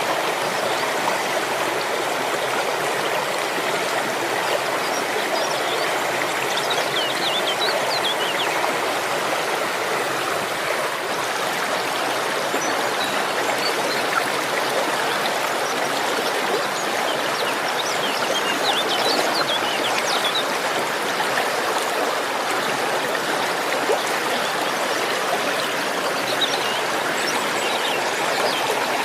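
Waterfall water rushing and splashing in a steady, unbroken stream, with a few faint high chirps now and then.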